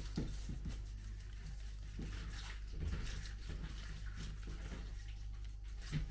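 Light rustling and small knocks of handling new sandals and the paper wrapped around their buckles.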